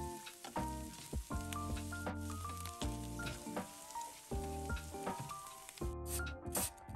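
Corn kernels sizzling as they fry in a nonstick frying pan, stirred with a spatula, under background music with a light melody. About six seconds in the sizzling stops and a potato rasps in short strokes across a plastic hand grater.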